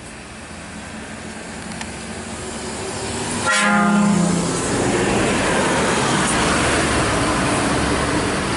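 Tour bus passing close by: a single air-horn blast about three and a half seconds in, lasting about a second. The horn is followed by the loud, even noise of the bus's engine and tyres as it goes past and away.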